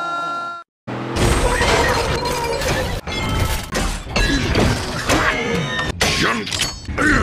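A steady pitched tone stops about half a second in. After a short gap, edited-in robot-fight sound effects begin: dense metallic crashes and impacts with sweeping mechanical whirs, layered over music.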